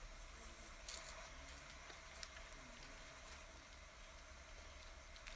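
Near silence: faint steady hiss with a soft hum, broken by a few faint brief rustles or clicks, about a second in and again a little after three seconds.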